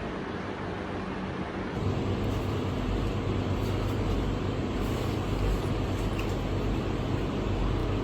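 Steady road traffic noise with a low rumble of passing vehicles, getting louder about two seconds in.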